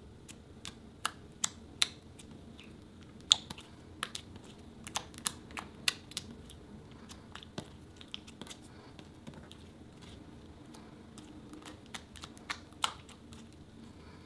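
Sticky clicks and pops from slime being handled and squished, irregular and sharp, some much louder than others, over a faint steady hum.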